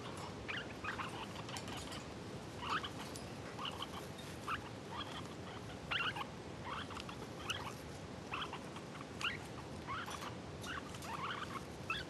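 Lineolated parakeets in a nest box, an adult with its downy chicks, making many short, squeaky chirps at an irregular pace of a few a second.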